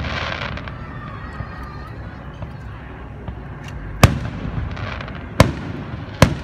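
Aerial firework shells bursting overhead: three sharp bangs in the second half, roughly a second apart, over a steady low outdoor background.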